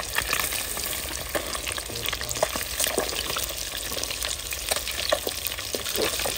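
Fish pieces frying in hot ghee in an aluminium karahi: a steady crackling sizzle, with frequent clicks and scrapes of a slotted metal spoon against the pan as the pieces are turned.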